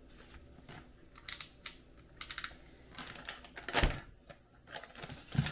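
Small kit parts and packaging being handled: scattered light clicks and rustles, with a sharper knock near four seconds in and another near the end.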